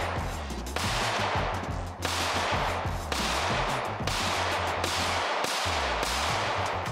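Glock 43X MOS 9mm pistol fired about six times at a steady, unhurried pace, roughly a second apart, each shot trailing off. A deep bass line of background music runs underneath.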